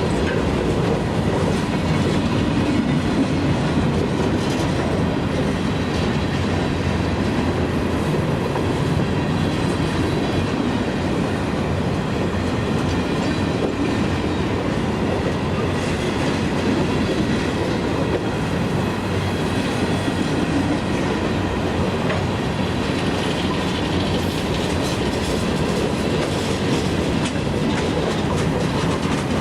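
CSX freight train's cars rolling past on the rails: a steady, loud clatter of steel wheels over the track that holds through the whole stretch.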